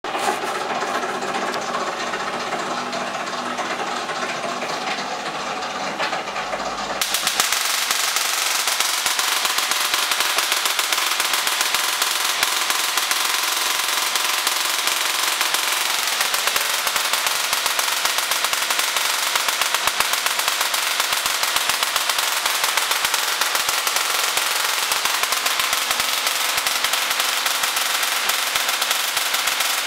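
Rotary spark gap Tesla coil: a steady hum for the first several seconds, then at about seven seconds the spark gap starts firing, a loud, continuous, very rapid crackling buzz of sparks that carries on steadily.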